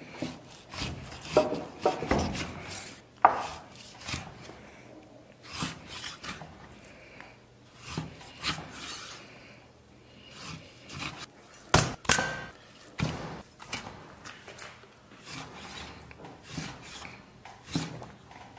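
Chinese cleaver cutting raw skin-on pork belly into chunks on a thick wooden chopping block: rasping slicing strokes through the meat and irregular knocks of the blade on the wood. The loudest knocks come about three seconds in and about twelve seconds in.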